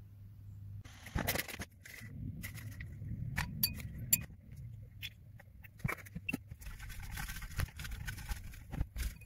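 Handling noise about a second in, then a few sharp clinks as matcha powder is scooped from the tin into a glass bowl with a bamboo scoop. Near the end comes the brisk swishing of a bamboo whisk (chasen) whipping matcha in the glass bowl, with a few light knocks.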